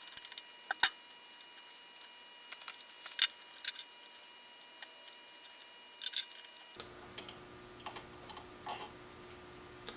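Scattered light clicks and taps of metal parts being handled as a NEMA 23 stepper motor and its aluminium motor mount are set in place.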